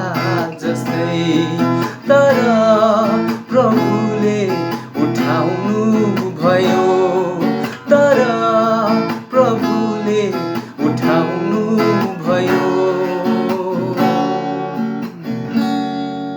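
Acoustic guitar strummed in a steady rhythm, capo on the second fret, with a man singing along. Near the end the strumming stops and the last chord rings out and fades.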